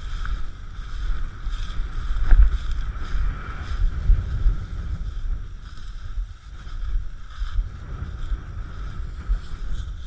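Wind buffeting the microphone of a camera carried through tall dry prairie grass, with the grass brushing and rustling against it. A single sharp knock comes a little over two seconds in.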